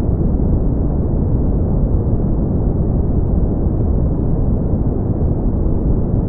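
Steady brown noise: an even, deep rushing hiss, strongest in the bass and fading toward the treble, with no changes.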